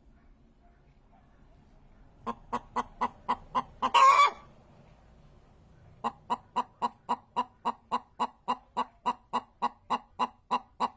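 Chicken clucking in a quick, even series of about four clucks a second, broken by one loud, harsh squawk about four seconds in; after a short pause the clucking starts again about six seconds in.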